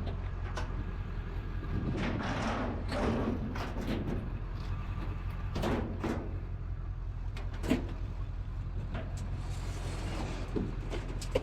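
Scattered knocks, scrapes and clatter of scrap items being handled, with the sharpest knock near the end, over a steady low rumble.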